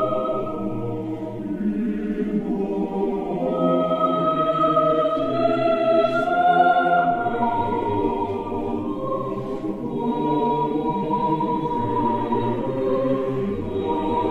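Background music: a choir singing slow chant in long held notes that change pitch every few seconds.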